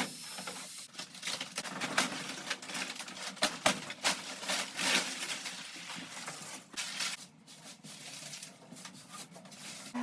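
Irregular knocks, clicks and scraping from hand demolition work, with fittings being pried and pulled out of a caravan interior.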